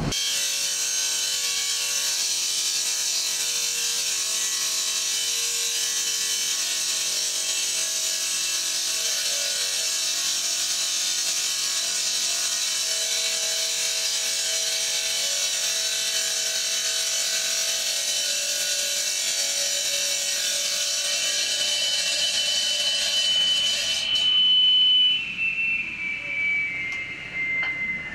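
Electric power tool motor running steadily with a high whine. It is switched off about 24 seconds in, and its pitch falls as the motor spins down.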